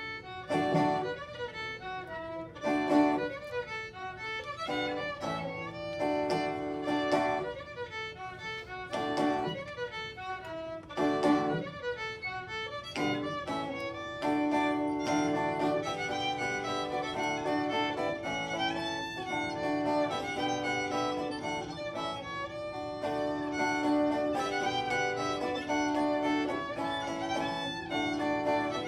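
Fiddle playing an instrumental folk tune, with sharply accented notes for about the first half, then longer, smoother held notes.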